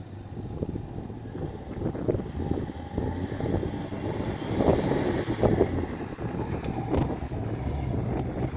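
Turbocharged Nissan TB42 straight-six petrol engine revving as the truck skids on dirt, loudest about halfway through as it swings towards the microphone. A faint whistle rises and falls with the revs, from the turbo, with wind on the microphone.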